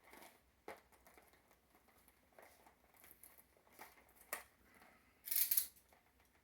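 Handling of plastic action-figure packaging and small plastic figures: scattered light clicks and taps, then a louder rustle of packaging for about half a second near the end.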